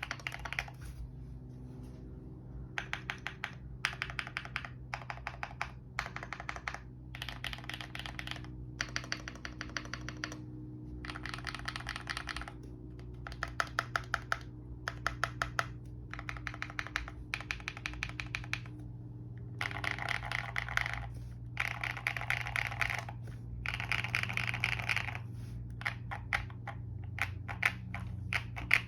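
Keychron Q1 mechanical keyboard with lubed Zaku linear switches, tape-modded under the PCB with plate foam and polyfill, being typed on in bursts of rapid keystrokes with short pauses between them.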